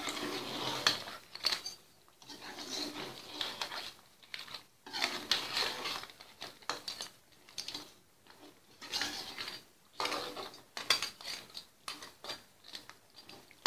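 Metal ladle scraping and clinking against an aluminium pot as a thick crab curry is stirred, in about five bouts with short pauses between them.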